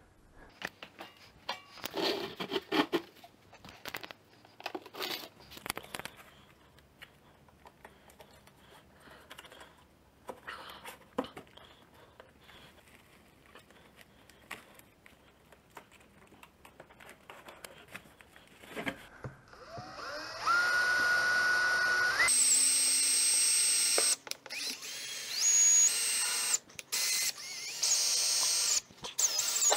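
Crinkling and clicks from a protective foam sheet and tape being handled, then a Makita cordless drill starts with a rising whine about two-thirds of the way in and runs loud in spells with short stops.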